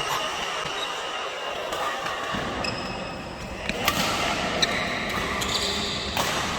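Badminton racket strikes on a shuttlecock, a few sharp hits spaced irregularly, among short high squeaks over a steady background noise.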